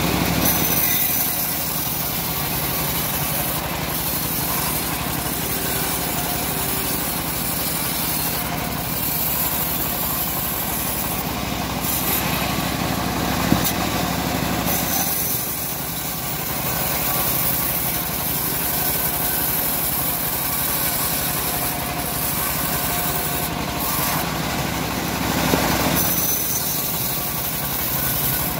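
Homemade engine-driven bandsaw sawmill running steadily while teak logs are fed through the band blade and sawn. A single sharp click about halfway through.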